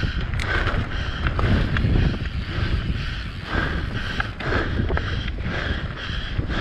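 Mountain bike descending a rough gravel and dirt trail at speed: tyres crunching over loose stones, frequent knocks and rattles from the bike over bumps, and wind rushing over the microphone.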